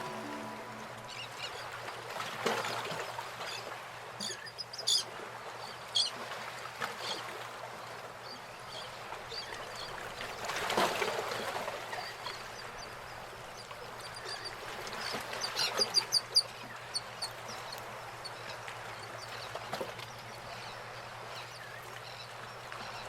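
Faint seaside ambience: a wash of water swelling and fading, with short bird calls scattered through it and a quick cluster of calls about two-thirds of the way through.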